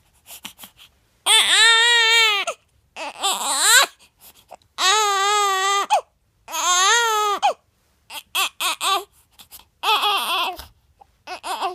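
10-day-old newborn baby crying: four wails of about a second each, rising and falling in pitch, then shorter, broken cries in the second half.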